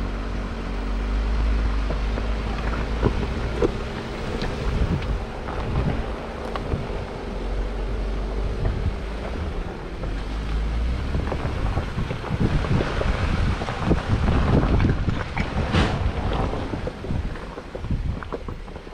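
A vehicle's engine running steadily at low speed, with wind on the microphone; in the second half a run of knocks, rattles and crunches builds over the hum.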